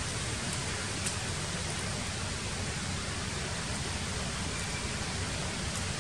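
Steady, even hiss with a low rumble beneath it, unchanging throughout, with no distinct events.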